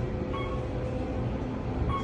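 Otis elevator car in motion: a steady low rumble and hum, with a short high beep twice, about a second and a half apart.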